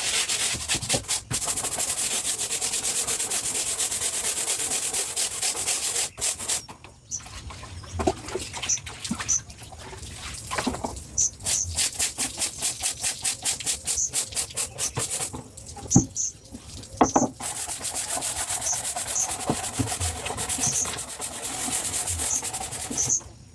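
A stiff brush scrubbing a hard surface in quick, rhythmic strokes, in three long bouts with short pauses between. Small birds chirp faintly.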